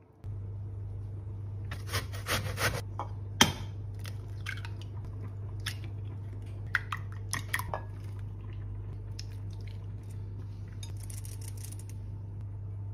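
Eggs cracked into a plastic mixing bowl: sharp clicks and knocks of shell on the bowl and shells being pulled apart, the loudest a single sharp knock. Near the end comes a brief rustle of flour being shaken through a metal mesh sieve, all over a steady low hum.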